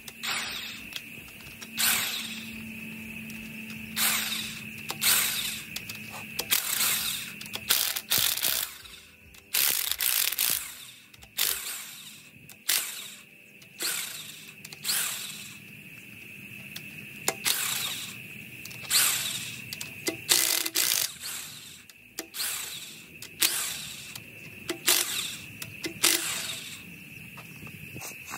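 Impact wrench in short rattling bursts, about twenty of them, each around a second long, spinning off the cylinder-head nuts of a 1952 Dodge M37 engine so the head can be pulled.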